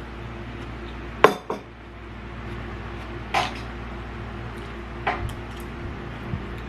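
Cutlery clinking and knocking against dishes, about six separate clinks with the loudest about a second in, over a steady low hum.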